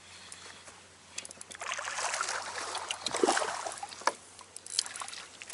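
Water splashing and sloshing, building about a second and a half in and easing off about four seconds in, with a few sharp clicks mixed in.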